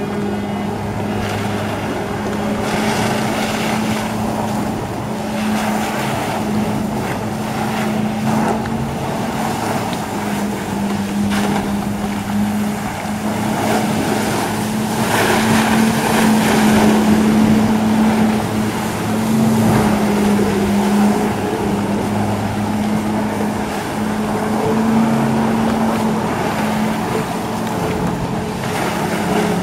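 Personal watercraft engine running hard and steady, pumping water up the hose to the JetBlade, with a steady drone and the hiss of the water jets; it swells a little about halfway through.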